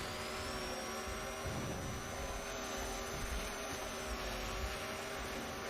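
A steady droning hum with a thin high whine that rises just before and then holds, dipping briefly about four seconds in.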